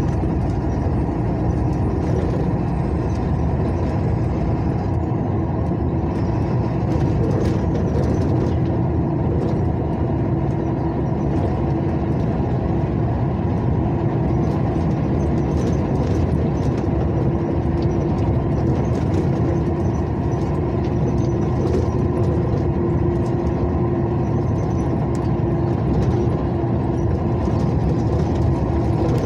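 Inside a moving truck's cab: the engine runs steadily under continuous road noise, with a steady hum and light scattered rattles.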